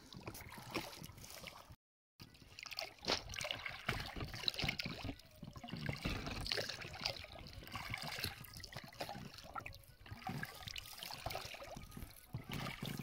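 Oar of an inflatable boat dipping and pulling through the water, with repeated splashing and dripping. The sound cuts out briefly about two seconds in.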